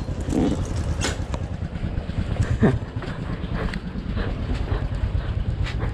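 Small motor scooter engine running at low speed with a steady low throb, and wind rumbling on the microphone.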